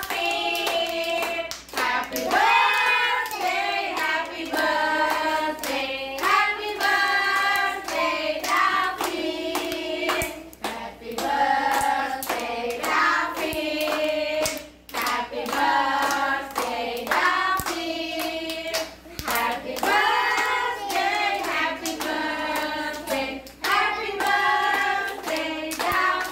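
A group singing a birthday song together in chorus, clapping their hands in time with a steady beat.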